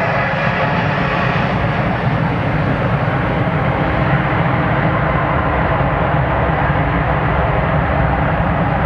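Boeing 747-200 jet engines running loud and steady, a broad rumble with a faint whine in it.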